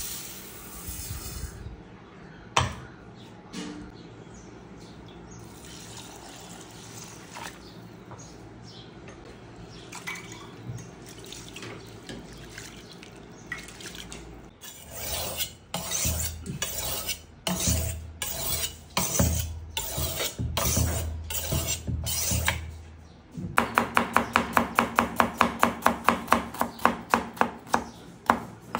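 Dry rice grains poured into an aluminium pot, then rice being washed by hand in the pot, the water swishing in irregular bursts. Near the end comes a knife chopping red onion on a plastic cutting board, fast and even at about four to five chops a second, the loudest sound here.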